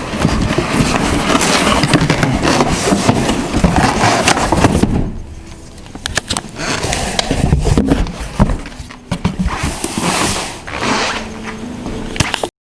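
Cardboard box being handled and opened: scraping and rustling with scattered knocks and clicks, quieter for a moment about five seconds in.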